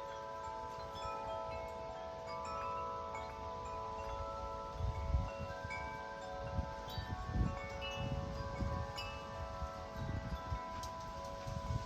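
Large Corinthian Bells 50-inch wind chime ringing in strong wind, its deep tubes struck again and again so that several tones overlap and hang. From about five seconds in, wind gusts rumble against the microphone several times.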